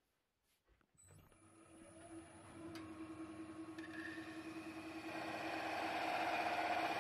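A wood lathe starts and spins up, its motor hum rising in pitch. A parting tool then cuts a groove in the neck of the spinning stone pine vase, the cutting noise growing louder toward the end.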